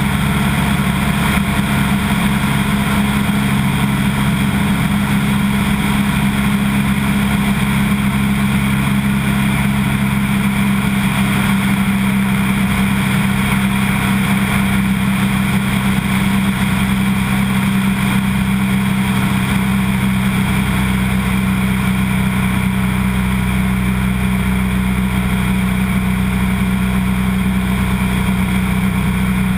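Light floatplane's piston engine and propeller running steadily in cruise, heard from a camera mounted outside on the wing strut, with steady airflow rush over the mic.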